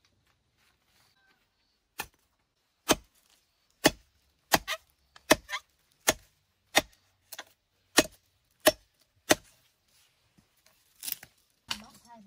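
Chopping: about a dozen sharp strokes, roughly one every two-thirds of a second, some landing as quick doubles, then a short pause and a few more strokes near the end.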